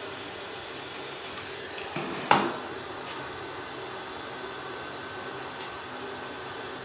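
A steady fan-like whir runs throughout, with a sharp click a little over two seconds in, just after a softer one, and a few faint ticks afterwards.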